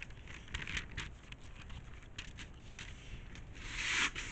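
Cardboard box being handled and opened: scattered light rustles and clicks, then a louder scraping rustle of the cardboard flap a little before the end.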